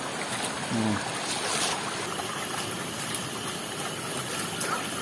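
Steady rushing noise outdoors, even throughout, with a short pitched, voice-like sound just before a second in.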